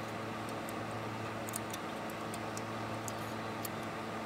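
Light, scattered metallic clicks of propeller-shaft hardware being fitted by hand on a boat outdrive, over a steady low background hum.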